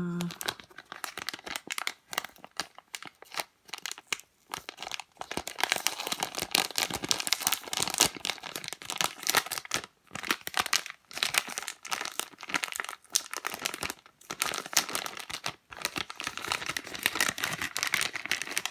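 Plastic packaging crinkling and crackling irregularly as a squishy toy is unwrapped by hand, growing busier about five seconds in.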